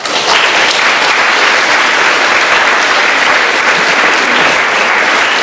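Audience applauding, starting suddenly and holding loud and steady.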